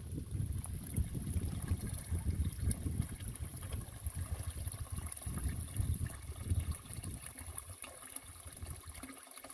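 Water running and trickling over an uneven low rumble that eases off near the end.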